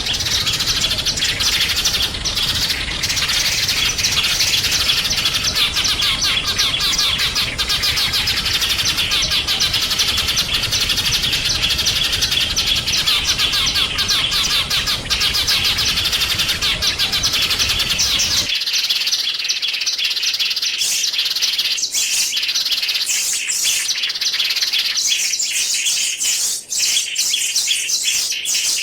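Small songbirds chirping and twittering rapidly and continuously in a dense, high-pitched chorus. A little past halfway the recording changes abruptly to a cleaner one without the low background rumble, and the chirping goes on.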